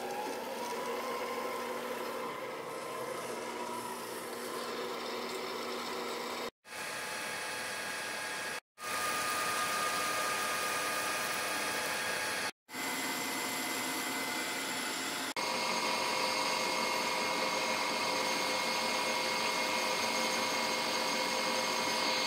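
Machine-shop motors running in several short clips cut together, each ending abruptly. A motor spins up with a rising whine, then a metal lathe runs steadily, turning a metal disc, with a steady hum and a high whine.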